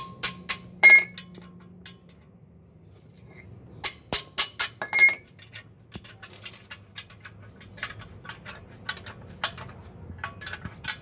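Metal hand tools clinking against the bolts of a car's clutch pressure plate as they are undone. There are sharp, ringing clinks in a cluster at the start and another about four seconds in, then a run of quicker, lighter ticks through the second half.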